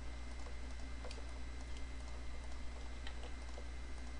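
A few faint, short clicks from a computer mouse and keyboard being used to Shift-click brush strokes, over a steady low hum and hiss.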